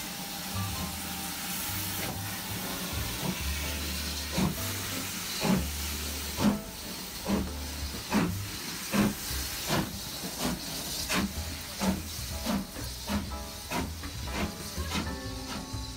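BR Standard Class 4MT 2-6-0 steam locomotive 76084 starting a train. Steam hisses at first, then exhaust chuffs begin about four seconds in and come steadily faster as the engine gathers speed.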